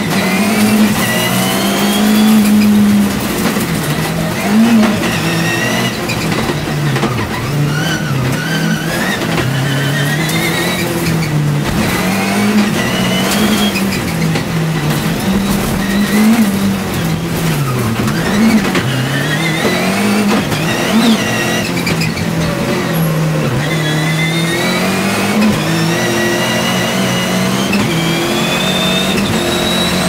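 Turbocharged rallycross supercar engine at racing speed, heard from inside the cockpit: the revs climb and drop sharply again and again through gear changes and corners, over a steady rush of road noise.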